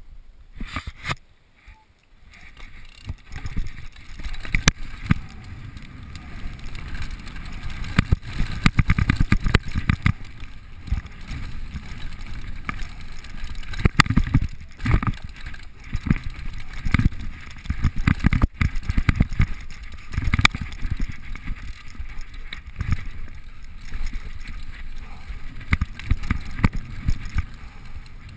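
Mountain bike descending a dirt forest trail, heard through an action camera: continuous low rumble of wind buffeting the microphone and tyres on the ground, with frequent sharp rattles and knocks as the bike goes over bumps and roots. Quieter for the first two seconds, then loud once the riding gets going.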